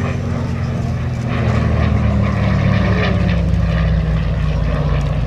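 Propeller-driven Yakovlev Yak-3UTI fighter's piston engine droning steadily through a flying display pass, growing louder about a second and a half in.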